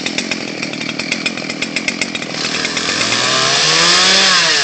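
Chainsaw running loud, cutting a tree stump, with its engine revving up and dropping back in the second half.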